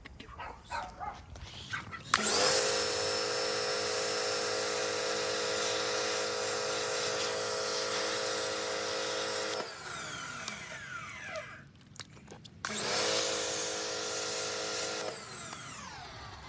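Cheap pressure washer pump running in two bursts, one of about seven seconds and a shorter one of about two and a half, each with a steady whine over spray hiss. After each stop the whine falls in pitch as the motor winds down.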